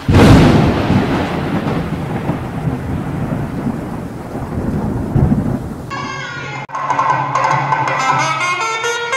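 Thunder-like intro sound effect: a sudden crash followed by a long rumbling, hissing decay. About six seconds in, music with a melody begins.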